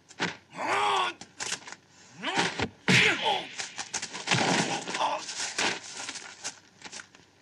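Martial-arts film fight sound: a quick series of punch and kick impacts and thuds, with fighters' shouts about a second in and again just past two seconds.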